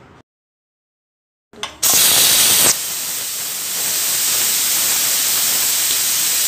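Pigeon Deluxe aluminium pressure cooker whistling: steam forces up the vent weight and escapes with a loud hiss, starting about one and a half seconds in. The hiss is loudest for its first second, then goes on steadily. The whistle is the sign that the cooker has reached full pressure.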